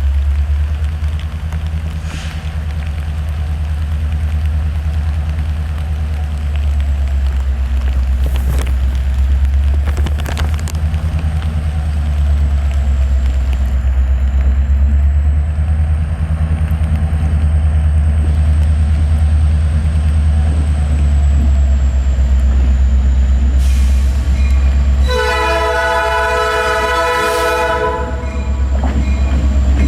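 Diesel freight locomotives rumbling steadily as the train runs by, with one horn blast of about three seconds near the end.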